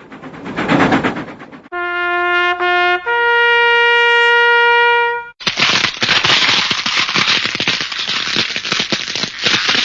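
A string of stock vlog sound effects: a short swell of noise, then a brass-like horn holding two notes, the second higher, for about three and a half seconds, then a dense rapid crackle like machine-gun fire that runs on to the end.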